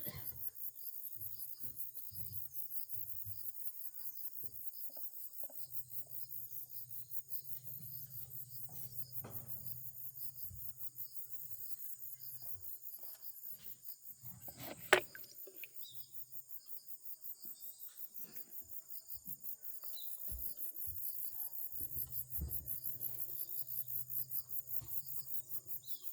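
Insects chirping in a steady, fast, high-pitched pulsing trill. A single sharp click comes about fifteen seconds in.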